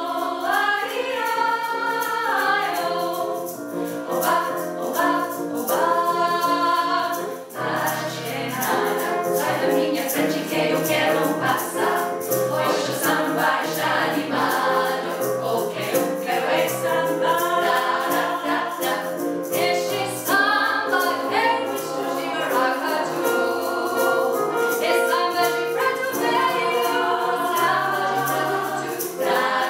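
Women's choir of seven voices singing in harmony. About seven seconds in, a low part comes in and the sound grows fuller.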